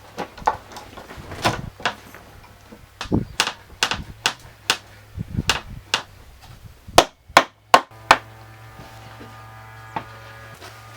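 Irregular hammer blows, about twenty in the first eight seconds, ending with four of the loudest strikes in quick succession. A steady hum sets in after that.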